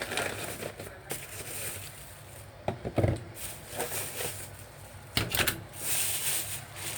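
Paper towel and plastic being handled as vegetables are wrapped: irregular light rustles and small clicks, with a brief louder rustle about five seconds in.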